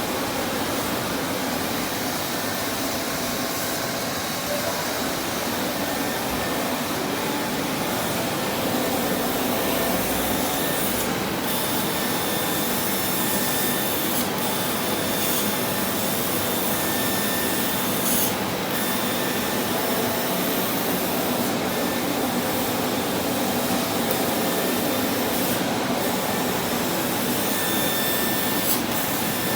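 CNC laser machine running: a steady hiss of air with thin, high whining tones that start and stop every second or two.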